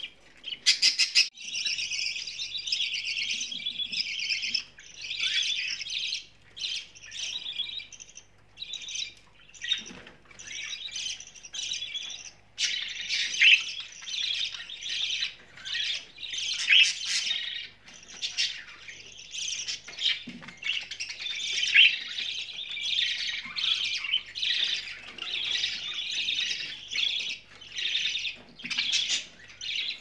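Pet budgerigars chirping and chattering in a busy, nearly continuous stream of high chirps with short pauses, starting loudly about a second and a half in.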